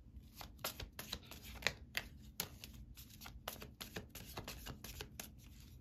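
Tarot cards being shuffled and handled: an irregular run of light, sharp card snaps and flicks, several a second.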